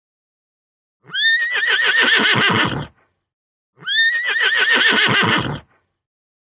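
A horse whinnying twice, each call about two seconds long, starting high and wavering before trailing off in lower pulses.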